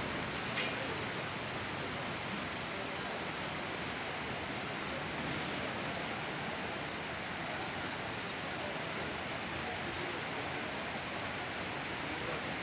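Steady rush of a swollen river in flood, an even roar of fast-flowing water, with one brief click near the start.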